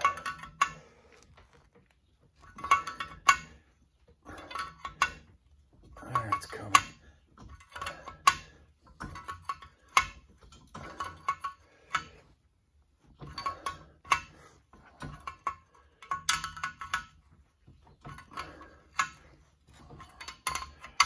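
Wrench turning the nut on a homemade liner puller's threaded rod, drawing a freed cylinder liner up out of a Case 188D diesel block: a short burst of metallic clicking and clinking about every second and a half, one burst per stroke of the wrench.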